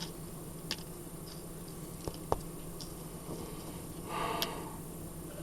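Faint, scattered small clicks and taps from handling a padlock and its tiny parts while the pins are taken out of the cylinder, with a brief soft rustle about four seconds in.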